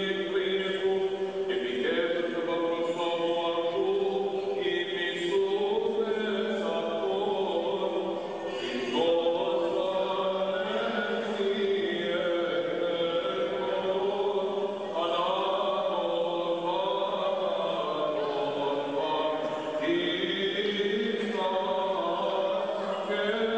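Greek Orthodox Byzantine chant: voices singing long, held notes that move slowly from pitch to pitch.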